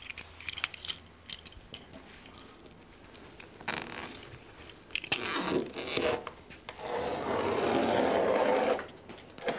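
Utility knife cutting through fiberglass window screening: a few short scrapes, a longer cut about five seconds in, then one steady cut of about two seconds near the end, the loudest.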